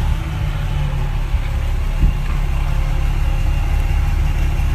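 An engine running steadily at idle, a continuous low rumble.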